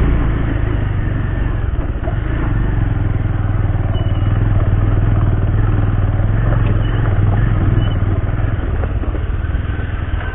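Bajaj Pulsar 150's single-cylinder engine running steadily as the motorcycle rides up and over a loose dirt and gravel track, heard from on the bike.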